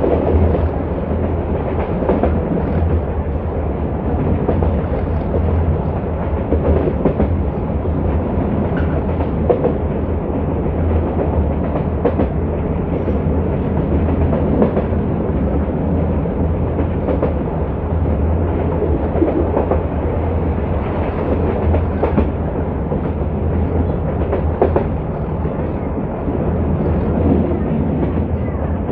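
Metre-gauge passenger train running, heard from aboard: a steady low rumble with the wheels clicking over rail joints at irregular intervals.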